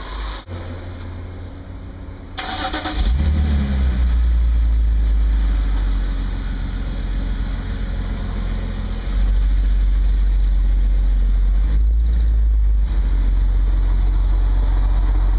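A BMW Z4 roadster's engine starting about two and a half seconds in, catching with a short rev and settling to a steady low idle. The engine gets louder from about nine seconds in as the car pulls slowly away past the microphone.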